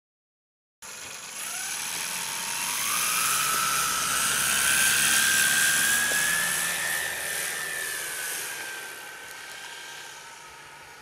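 Motor and propeller of a home-built radio-controlled Demoiselle model plane whining at takeoff power. It starts about a second in, rises in pitch over the next two seconds as the throttle opens, then holds a high whine that fades as the plane climbs away.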